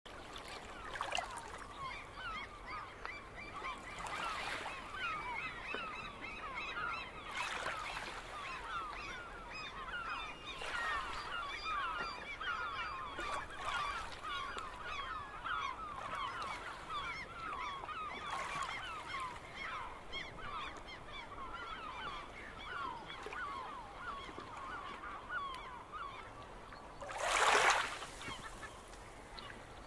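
A large flock of gulls calling continuously, many short falling calls overlapping. A few short rushes of surf wash in, the loudest near the end.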